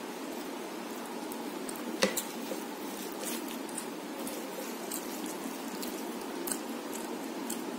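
Fingers squishing and mixing rice with chicken curry on a ceramic plate, with small wet clicks and one sharp click against the plate about two seconds in, over a steady background hiss.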